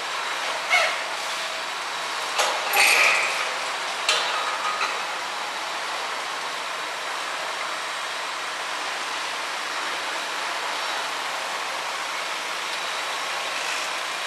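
Demolition machinery working on a concrete building: a steady din of heavy plant, with a handful of sharp knocks and crashes in the first five seconds and one more near the end.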